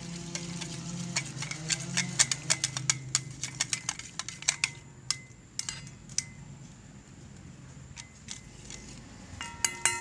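Slime mixture of glue, water and laundry detergent being stirred in a bowl, the utensil clicking rapidly against the sides for about five seconds, then only a few scattered taps, with a ringing clink near the end.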